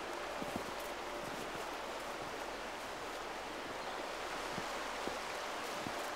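Steady outdoor rushing noise with a few soft footfalls scattered through it.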